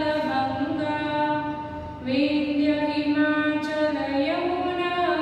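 A woman singing unaccompanied in a slow, chant-like melody, holding long notes that step from pitch to pitch. A new phrase starts about two seconds in.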